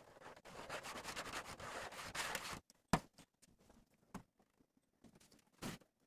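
A cloth rubbing back and forth over a flattened tin sheet for about two and a half seconds, then a sharp knock and a few lighter taps.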